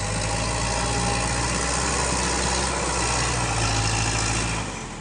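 Sonalika tractor's diesel engine running steadily under load as it hauls a loaded trolley through deep mud. The engine drops off near the end.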